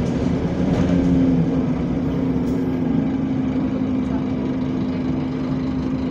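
Scania bus's engine cooling fan running, a steady droning tone over the low rumble of the engine, heard from inside the passenger saloon.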